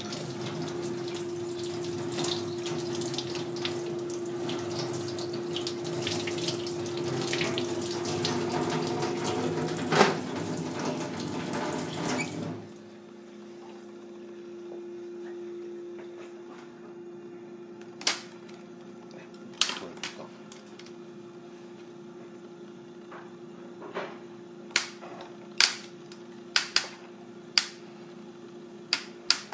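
Water running with a steady hum under it, cutting off abruptly about twelve seconds in. Then a quieter stretch with a dozen or so sharp clicks and taps as a steamed mud crab and a tool are handled on a metal tray.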